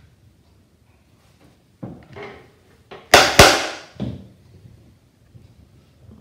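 Two sharp strikes of a small hammer on a brass fret caul, a quarter second apart about three seconds in, driving a fret's tang into its slot in the fretboard, with a lighter knock about a second before.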